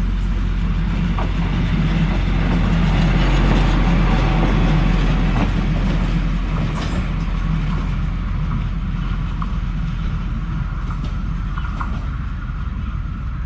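Railway track maintenance machine running past on the rails, its engine and wheels rumbling. It is loudest about three to four seconds in, then slowly fades as it moves away.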